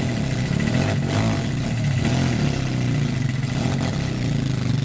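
Mini quad bike's small engine running hard under load as it tows a two-wheel walking tractor on a rope, the tractor's wheels held back by its engaged differential lock; the engine note is steady with a slight waver.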